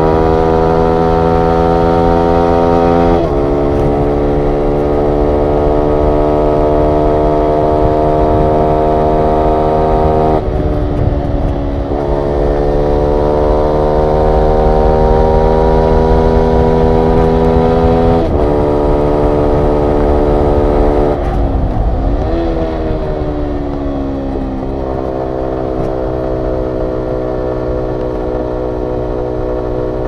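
2022 Yamaha YZF-R125's single-cylinder four-stroke engine running under way through a full Akrapovic exhaust system, loud and held at fairly steady revs. Its pitch shifts several times, about 3, 10 and 18 seconds in, and dips and climbs again at about 22 seconds.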